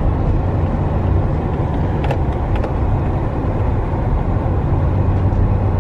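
Steady engine and road rumble heard inside the cabin of a moving vehicle, with a couple of faint clicks about two seconds in.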